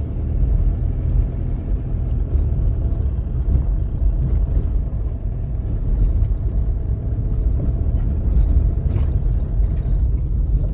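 Strong wind buffeting the microphone: a loud, continuous, gusting low rumble.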